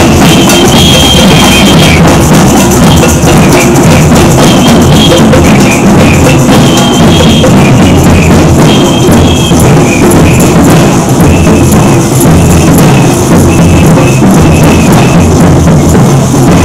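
Loud drumming and percussion music, steady throughout, with short high held notes that come and go every second or two.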